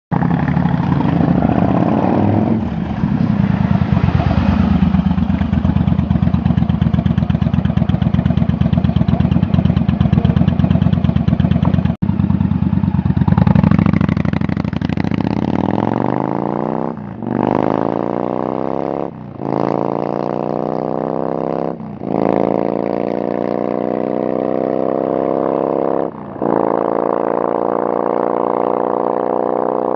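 Yamaha XVS1100 Drag Star's V-twin running loud through its aftermarket pipes, first at a steady low pace, then accelerating hard up through the gears from about halfway: the pitch climbs in each gear and drops briefly at each of four shifts.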